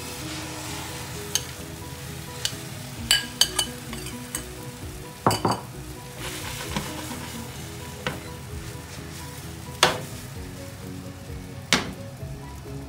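Beaten egg with chopped peppers sizzling in a hot frying pan as it is poured in and spreads, with a few sharp clicks against the pan.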